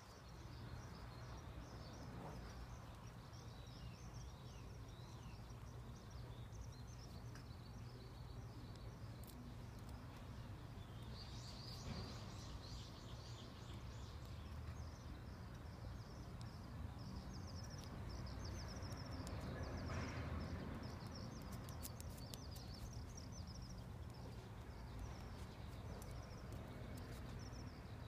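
Faint outdoor background: a steady low hum with many small birds chirping throughout, a little louder around the middle.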